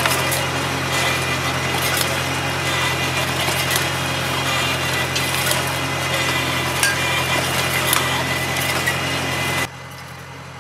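Tractor engine running steadily under the load of an Arrizza Expo R-Top under-vine cultivator with a motorised disc gang, with scattered clicks and scraping of soil and stones against the steel blade. About a second before the end, the sound drops to a quieter, more distant engine.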